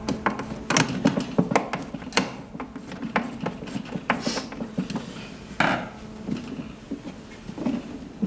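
Scattered clicks and light knocks of tools and parts being handled on a heat press during reassembly, over a steady low hum.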